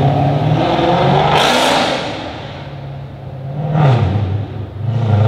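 Mercedes-AMG C63 coupé's V8 accelerating away hard, its note dropping and climbing again through gear changes. A sharp crack comes about one and a half seconds in.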